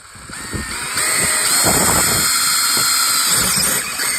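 Power drill boring an auger bit down through a deck board, the motor running steadily under load. It starts up at the beginning, builds over about the first second, and dips briefly near the end.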